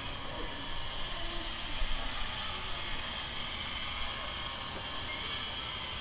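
Angle grinder with its disc working against metal: a steady hissing grinding noise with a faint high whine in it, holding an even level.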